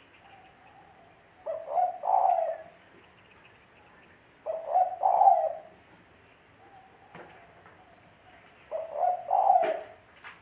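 Spotted dove (tekukur) cooing: three phrases about three seconds apart, each a couple of short notes followed by a longer, louder coo, with softer single coos between them.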